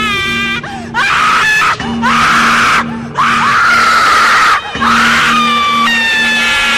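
Horror sound effect of a ghostly screaming wail: high, held cries that slide in pitch, breaking off briefly a few times, over a low tone that pulses about twice a second.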